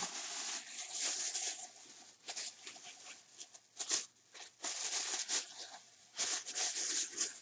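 White plastic bag rustling and crinkling in irregular bursts as hands rummage through it.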